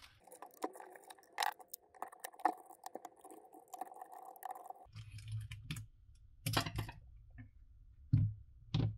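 Small clicks and knocks of a hand screwdriver and the plastic and rubber parts of a cordless random orbital sander being handled as its backing pad is unscrewed and lifted off. A faint steady hum sits under the first few seconds, and handling noise with a few louder knocks follows in the second half.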